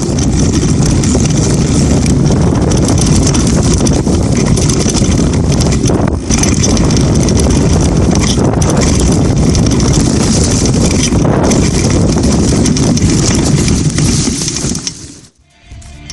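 Mountain bike rolling fast down a dirt trail, heard from a camera mounted on the bike: a loud, steady rush of wind over the microphone mixed with tyre noise and knocks from the bumps, cutting off suddenly near the end.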